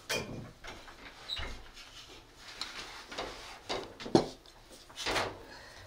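Light kitchen clatter: a metal spoon clinking against ceramic bowls and plates as they are handled on the table, with one sharp knock about four seconds in.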